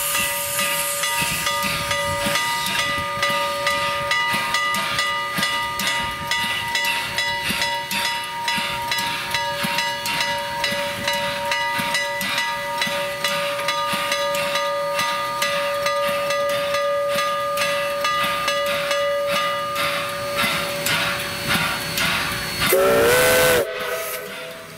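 Vulcan-built 0-4-0T steam tank locomotive hissing steam, with several steady whistling tones and a fast, even beat running through the hiss. Near the end comes one short, loud blast of a steam whistle that slides up in pitch as it opens.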